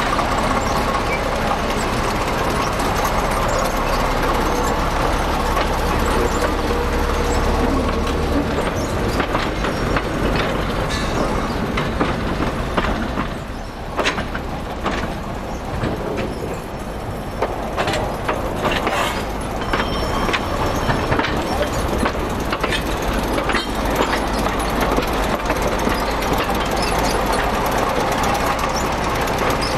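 Narrow-gauge 'Planet' diesel locomotive's engine running steadily, with a run of sharp clicks and knocks in the middle.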